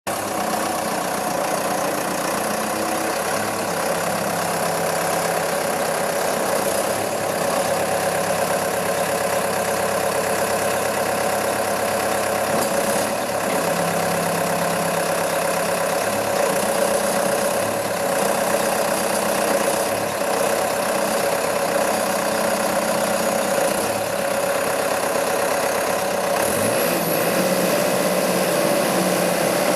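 Case 650K crawler dozer's four-cylinder mechanical turbo diesel running steadily, its tone shifting now and then. About 26 s in, the pitch rises briefly.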